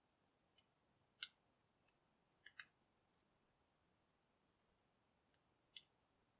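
Faint, sharp clicks from a lock pick working the pins of a Dexter by Schlage lock cylinder during single pin picking, about five of them at uneven intervals.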